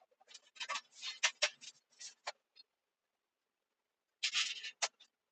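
A quick run of small clicks and rustles for about two seconds, then a short rustling scrape ending in a sharp click near the end. The audio is sped up three times, so the sounds are quickened and raised in pitch.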